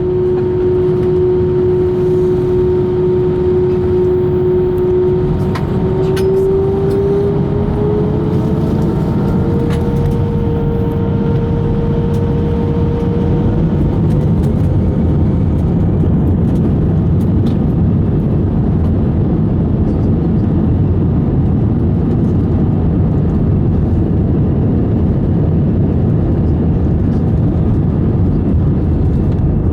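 Airbus A320 jet engines and airframe heard from inside the passenger cabin: a steady rumble with a whining tone that rises in pitch about five seconds in and fades away by the middle, as the rumble grows a little louder.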